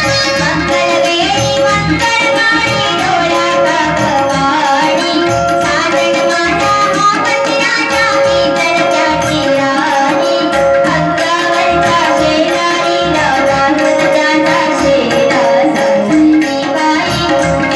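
Live Indian ensemble music: a woman singing over harmonium and electronic keyboard, with a steady rhythm from an electronic drum pad and a hand drum.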